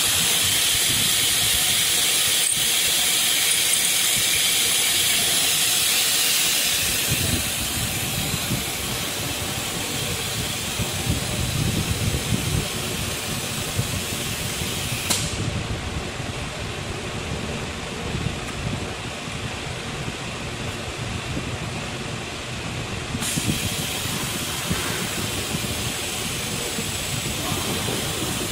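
Small ATC CNC router tapping a metal bar, with the spindle and coolant giving a steady hiss. About six seconds in the hiss drops and a lower, uneven machine-running noise follows as the spindle head travels across toward its disc tool changer.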